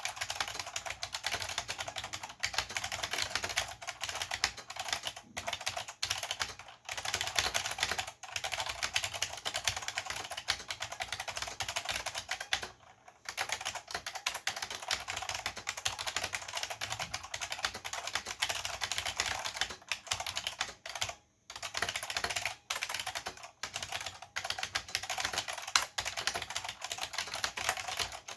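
Fast continuous typing on a Chicony KB-5301 keyboard with Chicony buckling spring switches: dense rapid clicks with the hollow, light bottom-out clacks of the keys, broken by two brief pauses.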